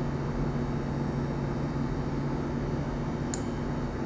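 A salmon pin bone snapping as it is pulled with tweezers: one sharp little click about three seconds in, over a steady low hum.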